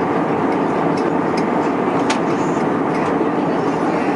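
Steady rushing cabin noise inside an Airbus A320 at cruise, the drone of airflow and engines, with a faint tick about two seconds in.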